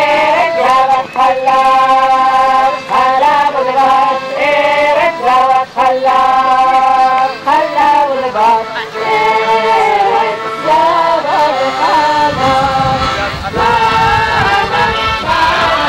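A group of voices singing a festive song, one melody line of held notes. A low rumble joins underneath about twelve seconds in.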